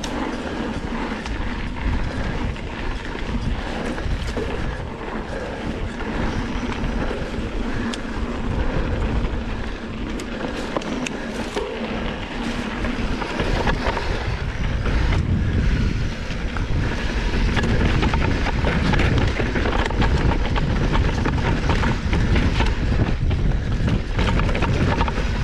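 Mountain bike descending a dirt trail: tyres rumbling over dirt and rock, with the bike rattling and clicking over the bumps. It gets louder about halfway through as the ride speeds up or the ground gets rougher.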